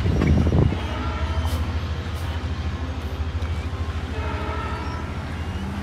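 Diesel train engine running with a steady low drone, with wind buffeting the microphone for the first moment.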